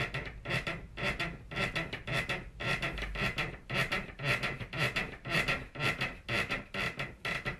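Rhythmic bed creaking and squeaking heard through the ceiling from the flat upstairs, about three squeaks a second, made by the neighbours having sex.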